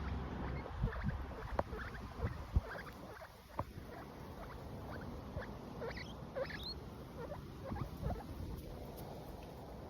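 Two-week-old baby guinea pigs making short squeaks and chirps, with several sharp clicks in the first few seconds.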